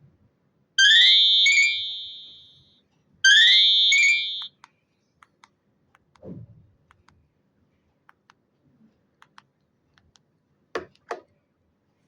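Nokia mobile phone ringtone playing a short electronic phrase twice: each time a quick rising sweep into a bright held tone that fades away, the first lasting about two seconds and the second about one. Faint scattered clicks follow, with a brief low sound about six seconds in and two sharp clicks close together near the end.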